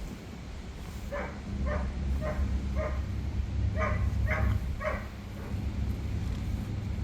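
Short animal cries repeated about two a second, four and then three after a brief pause, over a steady low rumble.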